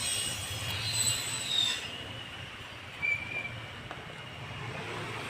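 Metal squealing and scraping as the old spark plug is worked loose from a Honda Dio scooter's engine. There are high-pitched squeals in the first two seconds and a short squeak about three seconds in.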